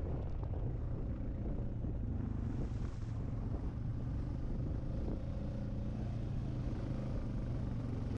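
ATV engine running steadily as the quad is ridden over a gravel trail.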